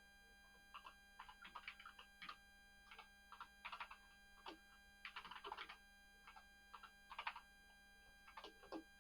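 Faint typing on a computer keyboard: irregular runs of key clicks with short pauses, entering a login ID at a prompt.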